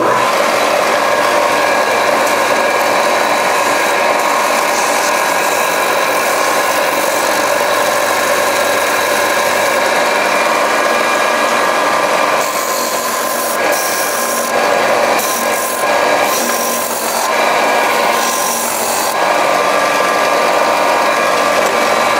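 A belt sander switches on and runs steadily with a rubber dressing block pressed against the moving belt, scrubbing off gum left by sanding pine. The rubbing sound changes several times in the second half as the block is worked against the belt.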